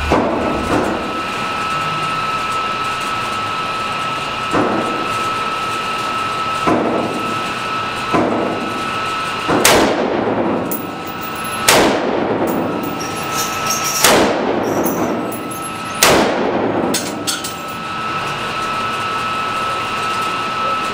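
A 5.56 AR-style rifle firing deliberate single shots on an indoor range, about eight shots spaced one and a half to two and a half seconds apart, each with an echoing tail off the range walls.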